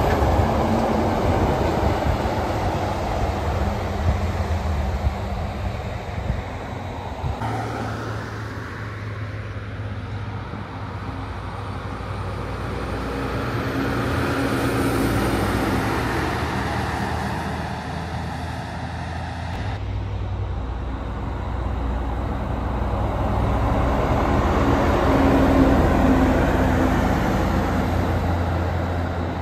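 Semi-trailer trucks driving past on a highway: a deep engine drone and tyre noise swell and fade as each one passes. The sound changes abruptly twice, about a third and two thirds of the way through, as one pass gives way to the next.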